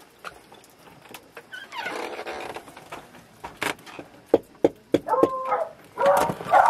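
Dog whining and yipping in excitement at greeting its returning owner, louder in the last two seconds, with several sharp clicks and knocks.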